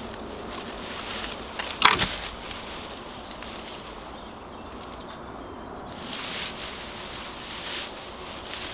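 Dry hay mulch rustling and crackling as hands pull it aside, in uneven handfuls. The loudest, sharpest crackle comes about two seconds in.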